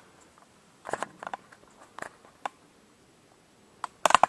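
Scattered light clicks and taps from things being handled on a lab bench, in a few short clusters with quiet between.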